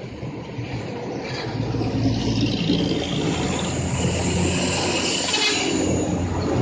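Road traffic noise of vehicles running and passing, growing louder about two seconds in.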